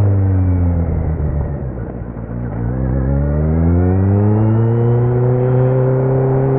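A 2018 Kawasaki Z900's inline-four running through a Leo Vince muffler with no dB killer. The engine note falls as the revs drop off for the first couple of seconds, then rises again as the throttle opens, and settles into a steady drone.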